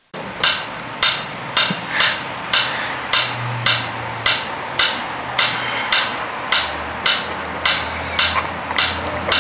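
Mechanical pyramid metronome ticking steadily, about two ticks a second.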